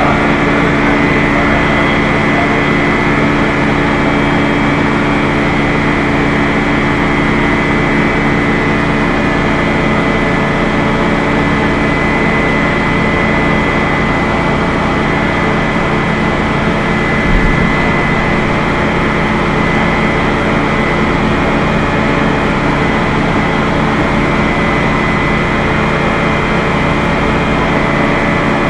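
Aircraft carrier machinery running: a loud, steady mechanical drone with several constant hum tones. One brief thump partway through.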